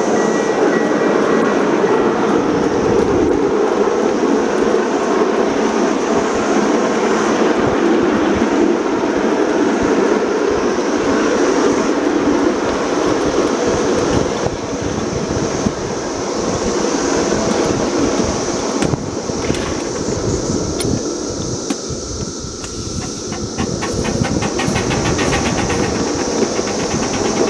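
Ride-on live steam miniature train running along its track, heard from aboard: a steady rumble of small wheels on rail with irregular clicking over the rail joints.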